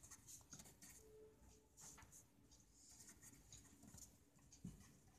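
Faint scratching of a felt-tip marker writing on paper in short, irregular strokes.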